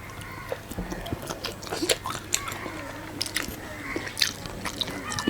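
A person chewing and biting food with their mouth close to the microphone, giving many short, irregular wet clicks and smacks.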